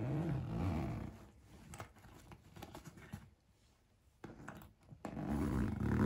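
Zipper on a travel duffel bag being pulled closed, in two pulls: one lasting about a second at the start and another about five seconds in.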